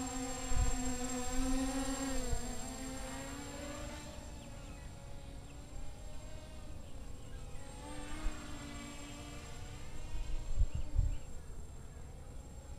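Small racing quadcopter flying: its four brushless motors (Emax 2204, 2300 kV) spinning 6-inch props give a buzzing whine whose pitch rises and falls as the throttle changes. The buzz fades in the middle and comes back stronger about eight seconds in, with a few low thumps about half a second in and near the end.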